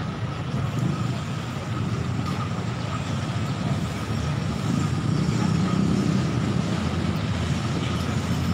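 Steady low rumble of city road traffic, with a faint steady whine above it.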